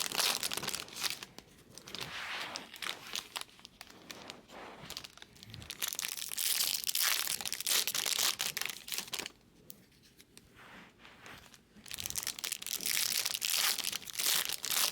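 Crinkling and tearing of trading-card packaging, foil pack wrappers and plastic being handled and torn, in three stretches with quieter pauses between.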